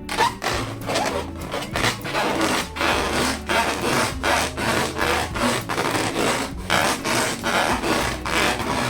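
Latex balloons being rubbed by hand in quick, even strokes, about three a second, with a steady low hum underneath.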